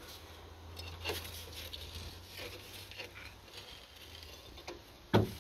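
Faint metallic clicks and scrapes as a K car brake drum, its staking drilled out, is pried and worked loose on the hub with a screwdriver, with one louder knock near the end.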